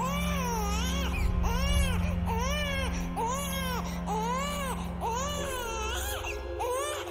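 Newborn baby crying in a run of short, rising-and-falling wails, one after another, over low background music.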